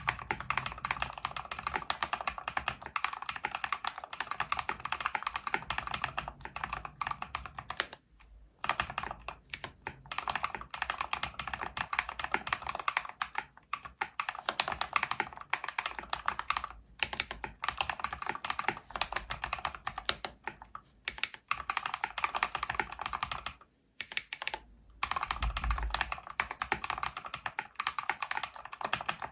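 Mechanical keyboard with tactile Holy Panda switches in a full-aluminium case, typed on quickly in steady runs of keystrokes, with several short pauses between runs.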